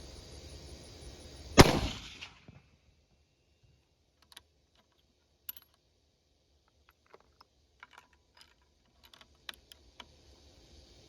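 A single rifle shot from a 6.5 Creedmoor bolt-action rifle fitted with a muzzle brake, a sharp crack about a second and a half in with a brief echo. It is followed by a run of faint scattered clicks.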